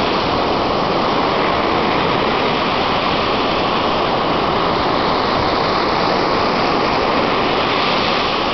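Waves breaking and washing onto a sandy beach: a steady, unbroken noise of surf.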